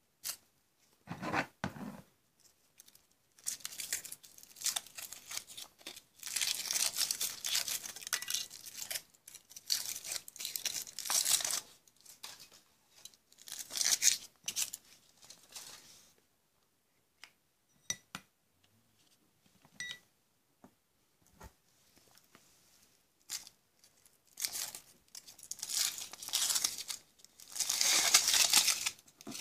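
The thin aluminium foil wrapper of a Kinder Surprise chocolate egg crinkling and tearing as it is peeled off by hand. It comes in several bouts of crackling, the loudest near the end.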